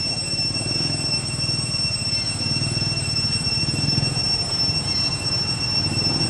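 A steady high-pitched whine that holds one pitch throughout, over a continuous low rumble.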